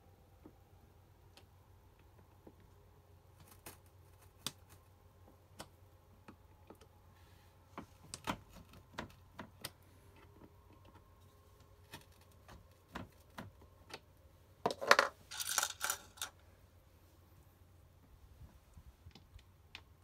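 A small screwdriver clicking and scraping against a plastic light-switch fitting as it is mounted in a wooden cabinet panel: scattered light clicks, with a short clatter of louder hard clicks about fifteen seconds in.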